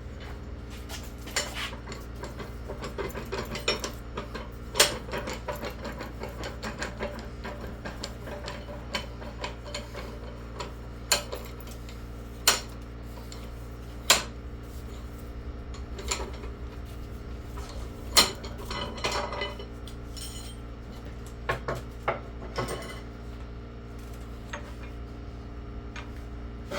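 Irregular metal clanks, knocks and clinks from a heavy cast-iron combination vise being worked on and pulled apart, with a few louder knocks scattered through. A steady low hum runs underneath.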